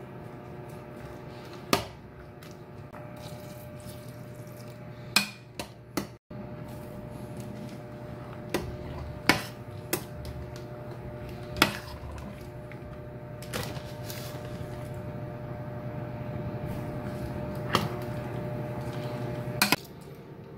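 Metal spoon stirring in a stainless steel pot, knocking against it about a dozen times with sharp clinks, over the steady hum of an electric glass cooktop; the hum cuts off just before the end.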